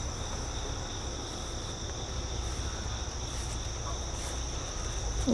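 Crickets singing in a steady, continuous high trill over a low rumble.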